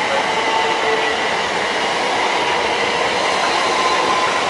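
Southern Class 377 Electrostar electric multiple unit running past along the platform: a steady rush of wheel and body noise, with an electric traction whine that rises slowly in pitch.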